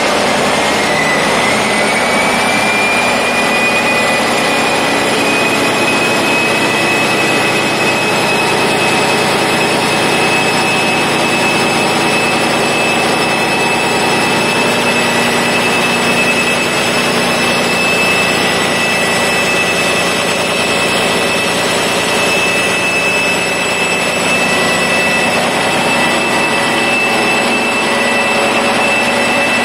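Rebuilt Caterpillar 3412 V12 marine diesel engine running on a test run just after starting, loud and steady. Over it is a high turbocharger whine that rises in the first couple of seconds and then holds steady.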